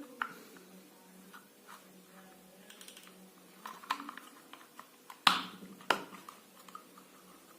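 Scattered light clicks and taps of small objects being handled, with two sharper knocks a little over five seconds in, the first the loudest, over a faint steady hum.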